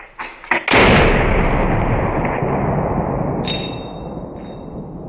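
A single shot from a DPMS Oracle AR-15 rifle firing 5.56×45mm M193-type 55-grain ball ammunition, about 0.7 s in, after a few faint clicks. The echo dies away slowly over about three seconds. A short metallic ring follows about 3.5 s in.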